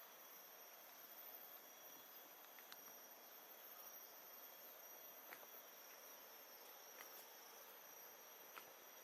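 Faint, steady high-pitched drone of insects, over a soft even hiss, with a few faint ticks.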